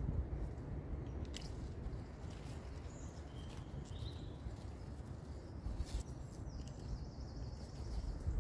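Wild garlic (ramsons) stems being snipped and picked by hand, a few crisp snaps over a steady low rumble, with faint bird chirps.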